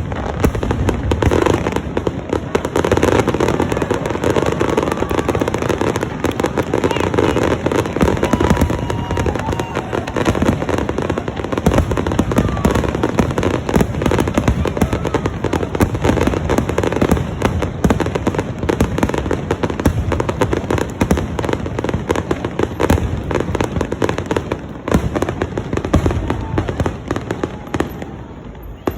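Fireworks going off in a dense, continuous barrage of bangs and crackles with no break, dropping away only at the very end.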